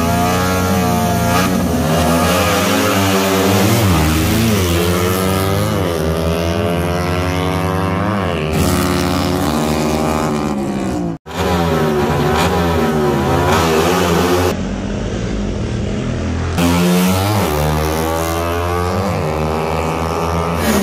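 Small-displacement motorcycles revving hard in a drag race, their engine pitch climbing and dropping again and again as they rev and shift. The sound cuts out for an instant about eleven seconds in.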